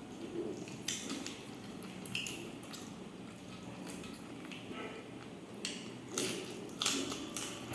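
Close-up eating sounds: chewing and mouth sounds, broken by several light clicks and clinks of a plate, more of them toward the end.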